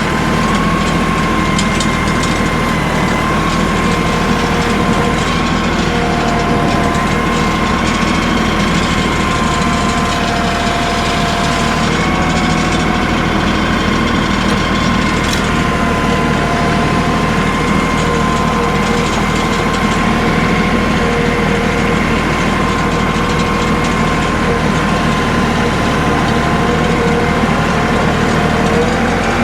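LS compact tractor's diesel engine running while its loader lifts and carries two logs on pallet forks. It runs at a steady level, with a whine whose pitch shifts now and then.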